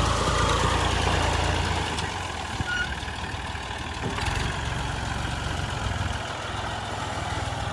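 Heavy farm diesel engines running, a low steady rumble that swells louder for the first two seconds and again for a couple of seconds in the middle.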